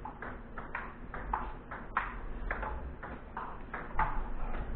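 Table tennis rally: a plastic ping-pong ball clicking off rubber paddles and bouncing on the table, about three sharp ticks a second in a steady back-and-forth.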